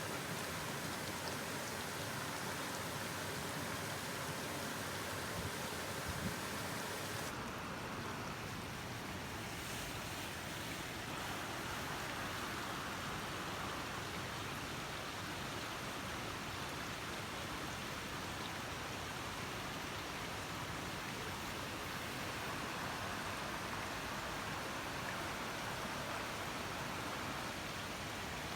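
Waterfall pouring, a steady rush of falling water.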